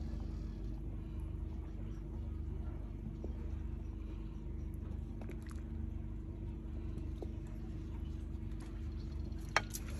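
Wooden spatula stirring maize-flour dough pieces in hot water in an aluminium pot, with a few faint ticks and one sharp knock against the pot near the end. A steady low rumble with a faint hum runs underneath.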